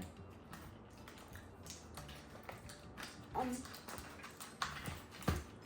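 Quiet pause with a few faint clicks and taps, the sharpest near the end, and a brief hum-like vocal sound a little past the middle.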